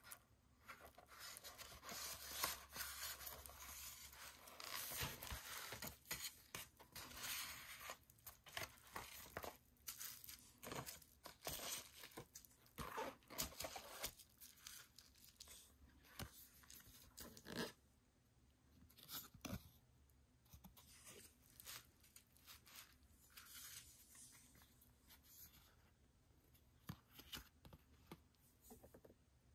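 Paper and card rustling as an album's contents are handled on bubble wrap: a CD slid from its paper sleeve and booklets moved about, with scattered crinkles and light taps. Busy in the first half, thinning out to occasional handling noises in the second half.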